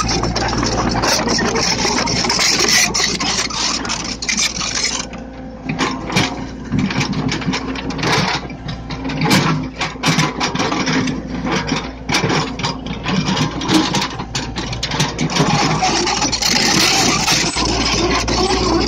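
Diesel engine of a Komatsu PC75UU mini excavator running, heard close to its rear engine cover: a steady low hum with a rapid clatter over it. The sound thins briefly about five seconds in.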